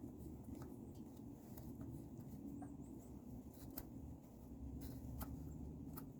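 Faint, scattered metallic clicks and light scrapes as the 8 mm bolts of a truck transmission's neutral safety switch are threaded in by hand, over a low steady rumble.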